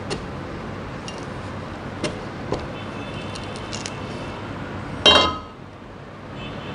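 A machete blade knocking and prying at a Ri6 durian's spiny husk, a few short dull knocks and cracks. About five seconds in comes the loudest sound, a sharp metallic clank with a brief ring as the machete is set down on the table.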